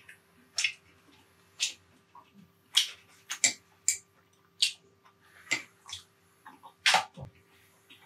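Close-miked mukbang eating sounds: irregular chewing, smacking and biting noises, a sharp one every half second to a second, the loudest about seven seconds in.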